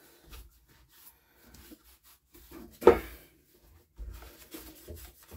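Light rubbing and handling sounds on a workbench, with one short, loud clunk about three seconds in.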